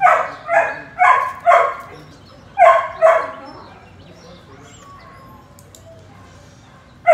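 A dog barking: four quick barks in the first second and a half, then two more about a second later.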